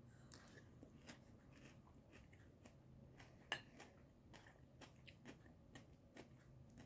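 Faint, close chewing of a mouthful of crunchy shredded-cabbage coleslaw: scattered soft crunches and clicks, with one sharper click about three and a half seconds in.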